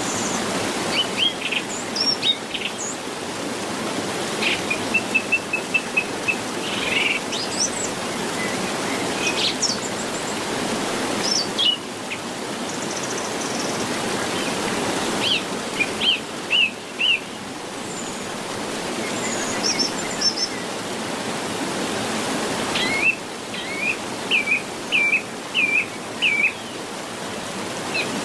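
Several birds chirping and singing in short, scattered calls over the steady rush of a flowing river. Near the end, one bird repeats a hooked note about five times in a row.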